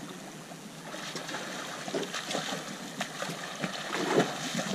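Small waves lapping and sloshing irregularly against the side of a boat's hull.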